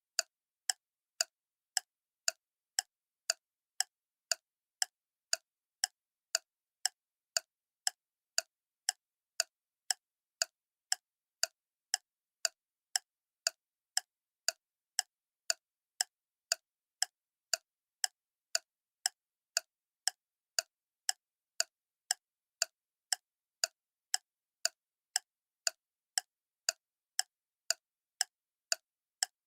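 Clock ticking steadily, about two sharp ticks a second, with silence between the ticks.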